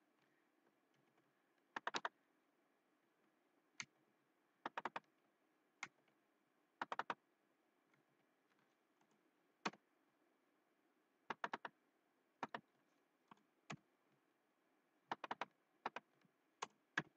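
Computer keyboard keystrokes and mouse clicks, sharp and sparse, coming in small groups of two or three every second or two over a very quiet background.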